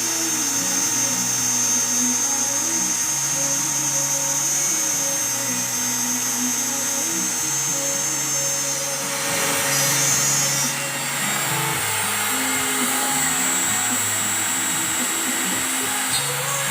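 Background music with a stepping melody over the steady high whine and hiss of a CNC router cutting aluminium composite panel; the cutting noise grows louder about nine seconds in.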